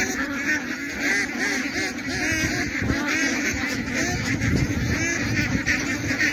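A large flock of white domestic ducks calling nonstop, many short overlapping quacks blending into a continuous chatter, with a low wind rumble on the microphone.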